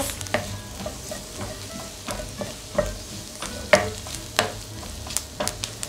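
Chopped onions frying in unsalted butter in a frying pan over low heat: a steady sizzle with scattered sharp crackles. The onions are soft and turning amber, and the crackling is the sign that they are close to scorching.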